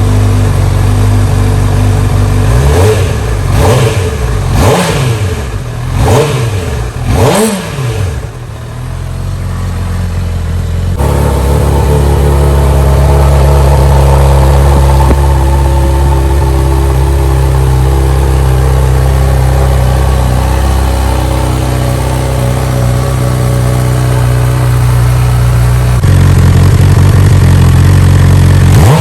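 2021 Honda CB1000R inline-four running through an Akrapovič full exhaust system: five quick throttle blips, each rising and falling in pitch, then the engine settles into a steady run that grows a little louder near the end.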